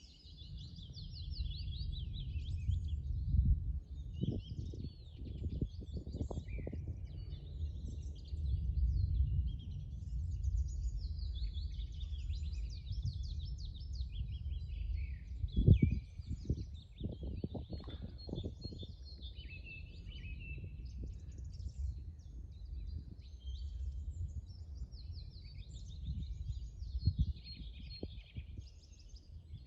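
Songbirds singing throughout in fast trills and twittering phrases, over a steady low rumble. Scattered low thumps, the loudest about halfway through.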